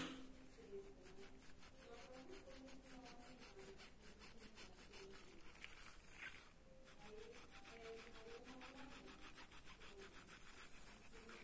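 Faint scratching of a mechanical pencil's graphite lead on paper, in many light, quick strokes.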